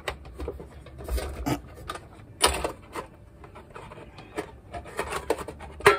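Lid being worked off a tin biscuit box: irregular scraping, rubbing and clicks of the lid against the tin, with louder knocks about two and a half seconds in and just before the end.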